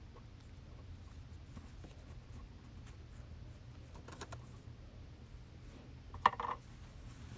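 Quiet handling sounds of cloth, needle and thread while a zipper stop is sewn by hand, with a few faint clicks about four seconds in and a sharp click followed by a short scrape about six seconds in.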